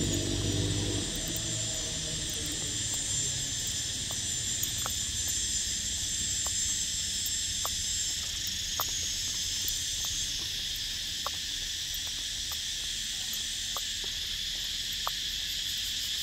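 Steady high-pitched drone of an insect chorus, with a short sharp click every second or so.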